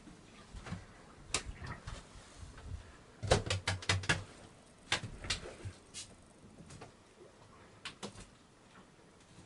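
Scattered sharp clicks and light knocks, with a quick run of about half a dozen clicks and a low thump between three and four seconds in.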